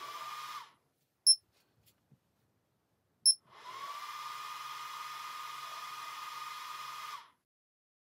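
LaserPecker 4 laser engraver running while it engraves on its rotary: a steady high whine with hiss that rises in pitch as it starts up. The whine stops under a second in, two short, loud high beeps follow about two seconds apart, then the whine starts up again and holds steady until it cuts off near the end.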